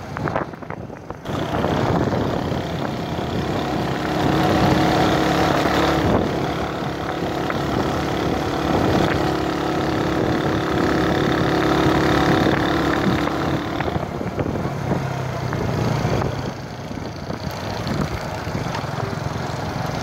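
Motor vehicle engine running steadily as it travels a rough gravel road, with wind and road noise over it. The engine note settles lower about two-thirds of the way through.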